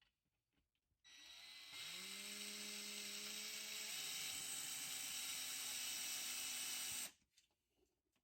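An electric motor starts about a second in and winds up in pitch. It runs steadily with a whine over a wide hiss, shifts pitch once partway through, and stops abruptly about seven seconds in.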